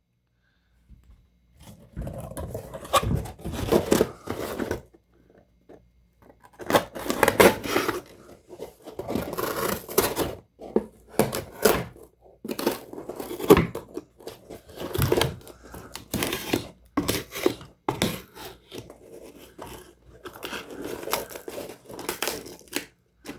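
Small multi-tool knife blade cutting through a material, heard as rough tearing and scraping strokes in irregular bursts. The blade is dull enough that it could use some sharpening.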